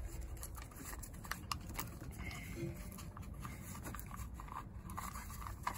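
Faint clicks and rustling from hands handling a plastic trailer socket and its bundle of wires while the housing is fitted back together.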